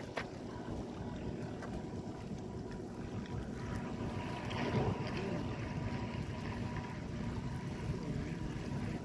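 Small electric motor of a radio-control model running with a steady whine, with wind on the microphone; it swells briefly about halfway through.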